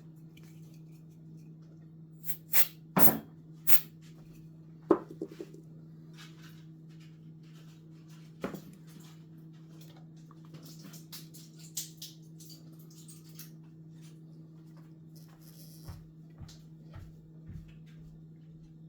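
Clicks, taps and knocks of 3D-printed plastic parts being handled and fitted together, with a cluster of loud sharp clicks a few seconds in and lighter clicking and a few soft thumps later, over a steady low hum.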